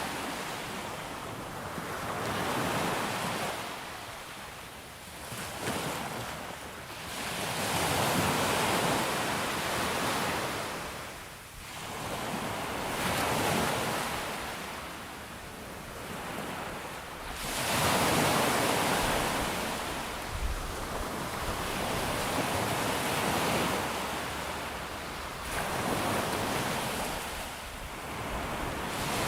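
Ocean surf breaking on a beach, waves surging and washing back in slow swells every four to five seconds.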